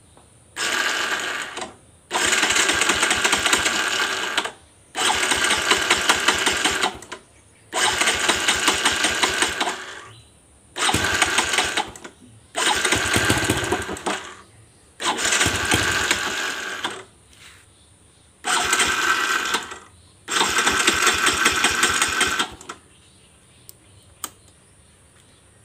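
Motorcycle electric starter worked nine times in a row, each press a burst of one to two and a half seconds of fast mechanical rattling that stops when released; the engine does not catch and run.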